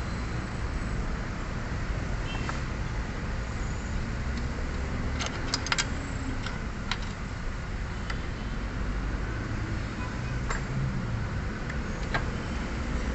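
Light metallic clicks and clinks of tools and steering rack parts being handled, a quick cluster of them about five to six seconds in and a few single ones later, over a steady low background rumble.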